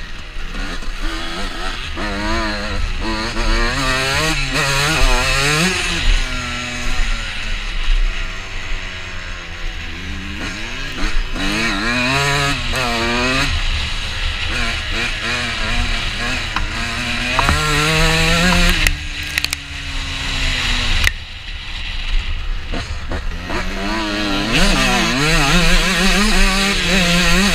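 Two-stroke dirt bike engine, a Honda CR125, revving hard and falling away over and over as the rider works the throttle and gears, with wind buffeting the helmet-camera microphone. About two-thirds through it drops to a low steady note for a couple of seconds before picking up again.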